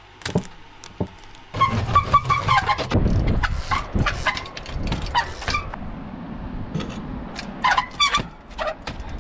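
A trials bike hopping across large rocks: repeated sharp knocks of tyres and rims landing on stone, with short high squeals, over a low wind rumble on the microphone.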